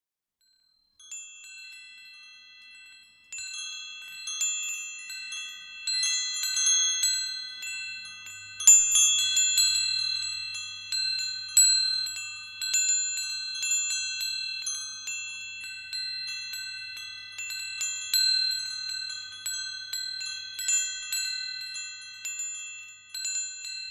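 Wind chimes tinkling: many high metallic tones at a handful of fixed pitches, struck irregularly and left ringing, starting about a second in and growing fuller a couple of seconds later.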